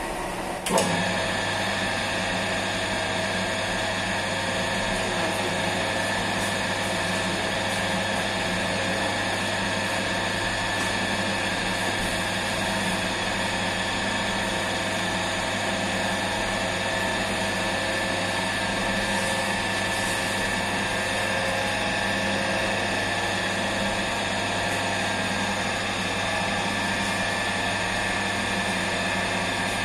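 Commercial spiral dough mixer turning flour in its steel bowl. There is a click about a second in, then its motor runs with a steady hum.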